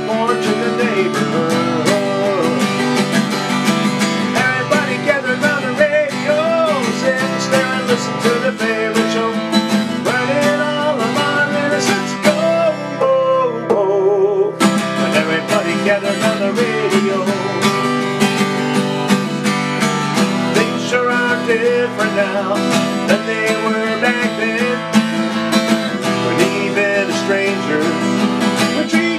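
Strummed 1947 Martin acoustic guitar accompanying a man singing a slow folk song.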